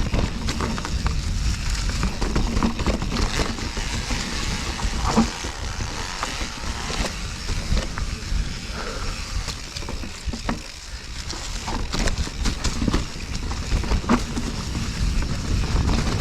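A full-suspension mountain bike rolling fast over rocky trail: tyres crunching on rock and gravel, with a steady stream of rattles and knocks from the chain and frame, and a constant low rumble of wind on the microphone.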